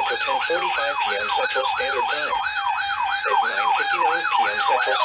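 Electronic siren in a fast yelp, sweeping up and down about four times a second. It starts suddenly and plays over a quieter weather-radio voice.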